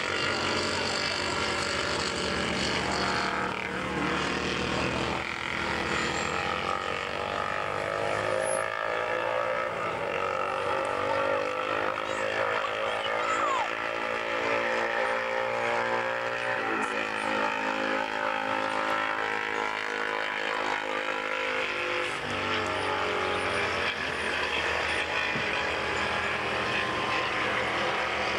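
Classic racing motorcycle engines running on the circuit, several overlapping. The engine notes rise and fall in pitch as the bikes pass and work through the bends.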